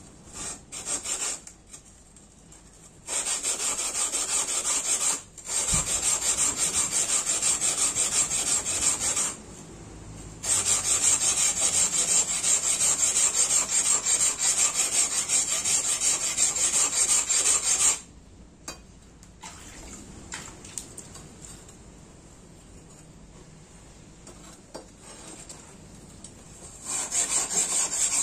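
Steel blade rubbed back and forth on a wet whetstone in rapid strokes, grinding in the yokote and kissaki of a tanto-style blade: a rasping hiss in runs of several seconds broken by short pauses, softer through most of the second half and loud again near the end.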